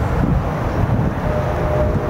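Wind rumbling on the microphone. About a second in, a faint horn chord of several steady notes starts sounding: the horn of an approaching train.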